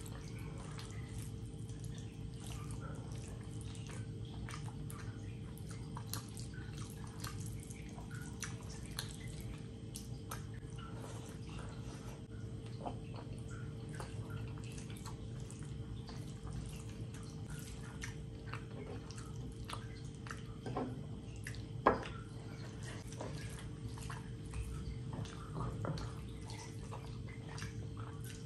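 Wet, sticky eating sounds: fingers squishing and mixing rice with curry on a plate, and open-mouthed chewing, making many small irregular smacks and clicks. One sharper click comes about two-thirds of the way through, over a faint steady hum.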